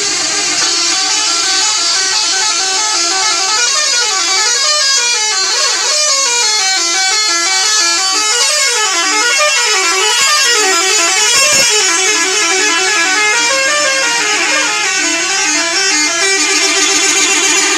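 Telolet musical bus horn: several horn tones sounding at once, playing a fast melody that steps up and down in pitch without a break. A brief sharp click about two-thirds of the way through.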